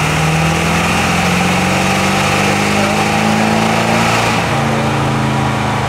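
Ford OBS pickup's 7.3-litre V8 diesel pulling hard on a chassis dyno, the engine note climbing steadily under load. About four seconds in the pitch drops back sharply and the engine carries on at lower revs.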